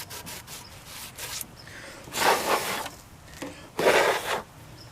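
A rag scrubbing dirt off the edge of a widebody fender flare. Quick rubbing strokes at first, then two longer, louder wipes about two and four seconds in.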